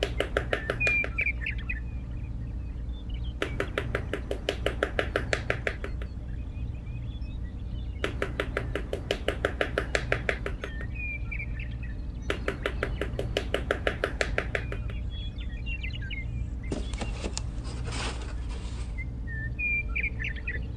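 Bird sounds: a rapid trill of evenly spaced notes, about two and a half seconds long, repeated four times, with short chirps in between. A brief hiss comes near the end.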